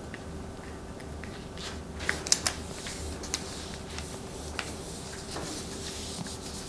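Paper rustling and light taps as a printed sheet is pressed and smoothed onto poster board by hand, with a few sharper clicks about two seconds in. A faint steady hum sits underneath.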